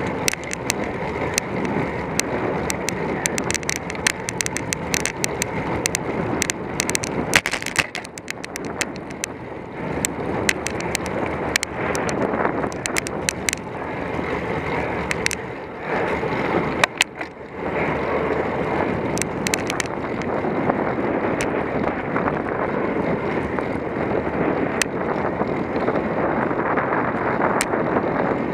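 Road bicycle being ridden: steady rushing wind and tyre noise on the mount, with many scattered small clicks and rattles, easing off briefly twice.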